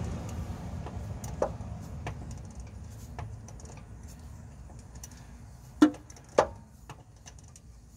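Socket wrench working on a starter mounting bolt: scattered light metal clicks, then two sharp metallic knocks about half a second apart near the end.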